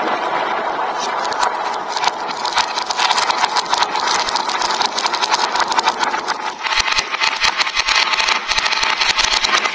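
Many marbles rolling and clattering down plastic marble-run tracks: a dense, continuous rattle of small clicks, growing busier a couple of seconds in, with heavier knocks near the end.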